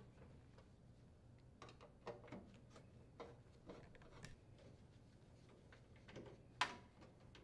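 Faint, irregular clicks and ticks of a Phillips screwdriver turning sheet-metal screws out of a heat pump's access cover, with one sharper click near the end.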